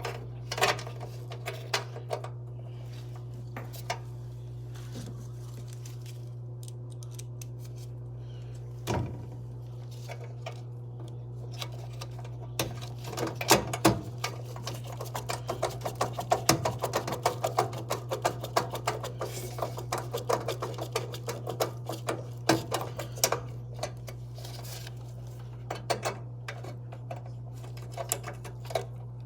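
Gas furnace running with a steady low hum from its motors, after its bad rollout switch has been replaced. Over it comes a long run of small clicks and rattles, thickest about halfway through, then sparser toward the end.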